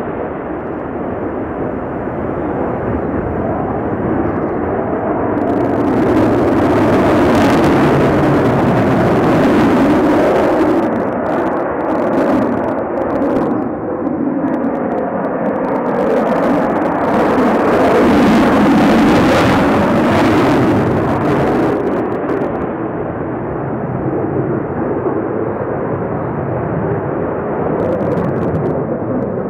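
Sukhoi Su-35 fighter jet's twin engines heard from the ground as it flies overhead: a loud, continuous rumble that swells twice, about a third of the way in and again past the middle.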